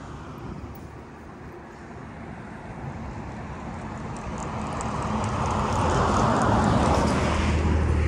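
Road vehicle approaching, its engine and tyre noise growing steadily louder over several seconds, with a low engine hum strongest near the end.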